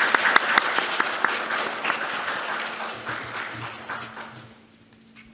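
Audience applauding, the clapping thinning and dying away about four and a half seconds in.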